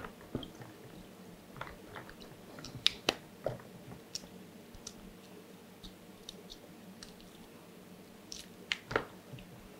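Hard-boiled eggs being peeled by hand over a plastic bowl: irregular small cracks and crackles of eggshell breaking and coming away, with a few sharper snaps about three seconds in and again near the end.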